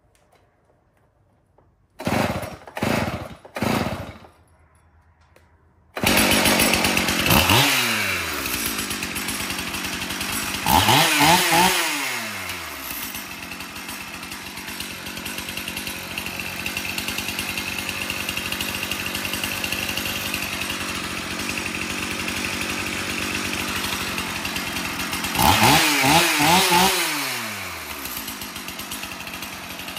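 Stihl MS 271 Farm Boss two-stroke chainsaw being pull-started: a few short bursts about two seconds in, then the engine catches about six seconds in and runs. It is revved three times, each time falling back to a steady idle.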